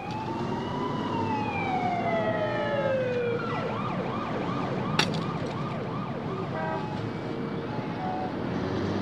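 City street traffic noise with an emergency-vehicle siren: a long wail that rises and then falls, then switches to a quicker yelp sweeping up and down about twice a second. A sharp click comes about five seconds in.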